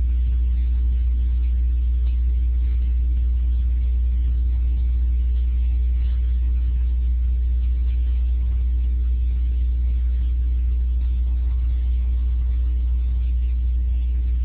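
Steady loud low hum with a faint hiss above it, unchanging throughout.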